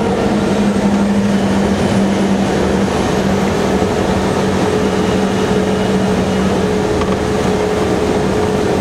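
Military patrol vehicle's engine and road noise heard from inside the crew compartment: a loud, steady din with a constant low drone. A second, higher hum grows clearer about halfway through.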